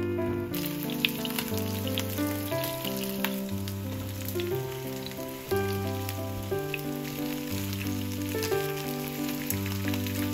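Eggplant and green bell pepper pieces frying in oil in a pan: a steady sizzle with small crackles that starts about half a second in. Background music plays underneath.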